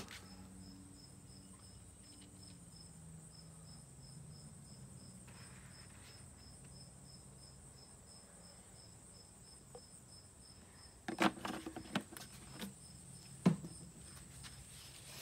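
Insects chirping steadily in a fast, even pulse over a low steady hum. About eleven seconds in, a cluster of sharp knocks and clatter, then one more loud knock a couple of seconds later, as the plastic oil jug is handled and set down.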